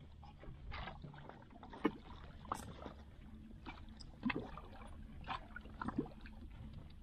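Water lapping and gurgling against the hull of a small outrigger boat, with scattered small splashes and knocks, over a faint low steady hum.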